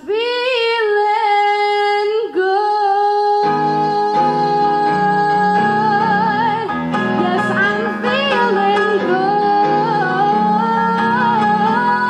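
A woman singing long held notes with vibrato, alone at first; about three and a half seconds in, a grand piano comes in with full chords under her voice.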